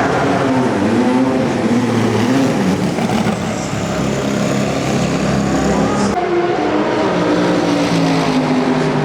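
Endurance race cars running at speed on the circuit, their engine pitch rising and falling through passes and gear changes. A different engine note takes over about six seconds in.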